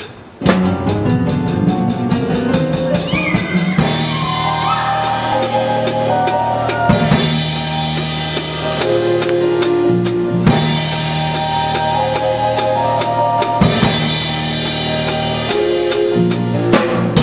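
Drum kit played hard and fast in a theatre pit orchestra, with snare, bass drum and cymbal hits over held keyboard and orchestra notes. The music comes in sharply about half a second in.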